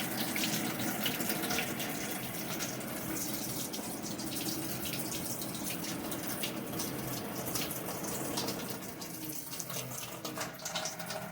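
Water running steadily from a tap, easing off slightly near the end.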